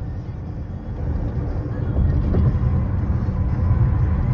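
Steady low rumble of road and tyre noise heard inside a moving car's cabin at freeway speed, growing louder about two seconds in.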